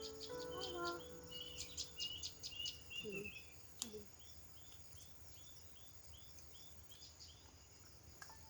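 Forest ambience: a bird repeats a short chirping note about twice a second over a steady high insect drone. Background music fades out in the first second.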